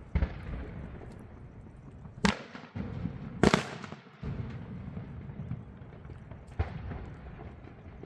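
Aerial fireworks shells bursting overhead: four sharp bangs a second or more apart, the loudest about halfway through, each followed by a rolling echo over a low, continuous rumble.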